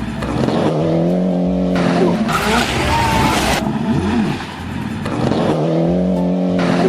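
Rally car engine running hard at a steady high note, alternating every second or two with bursts of loud rushing tyre noise.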